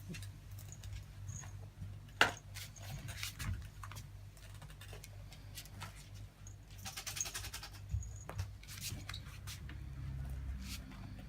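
A cat and a dog moving about in a small room: scattered light clicks and knocks, one sharp knock about two seconds in, and a short scratchy rustle about seven seconds in, over a low steady hum.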